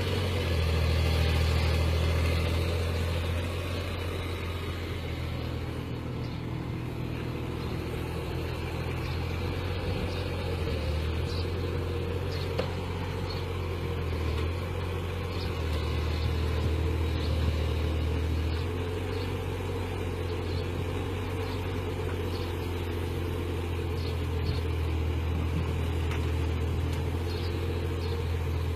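Heavy machine's engine running with a steady low drone that swells louder a few times.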